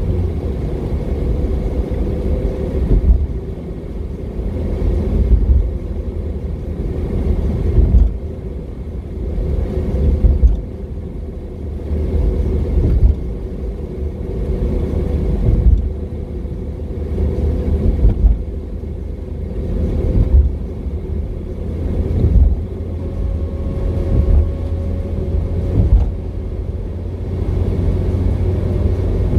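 Car driving along a road: a steady low rumble of engine and road noise, swelling and dropping back about every two and a half seconds.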